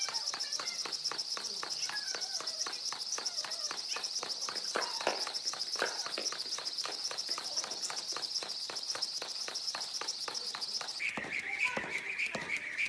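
Jump rope doing fast double-unders on a tennis court: the rope whirs and slaps the court in a steady run of about four ticks a second, along with the landings of the jumps. The rhythm stops about eleven seconds in.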